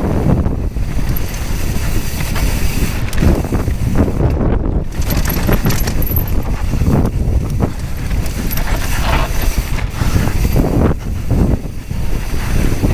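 Wind rushing over the camera microphone while a Giant Trance mountain bike rattles down a dry dirt trail at speed, its tyres running on the loose dirt and frequent knocks as it hits bumps.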